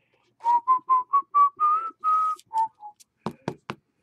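A person whistles a short tune of about ten quick notes that climb slightly in pitch and then drop for the last two. Three sharp knocks follow in quick succession near the end.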